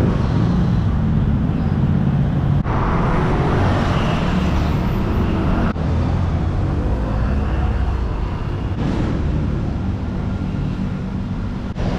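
Road traffic noise: a steady low rumble of vehicles running along a busy city street.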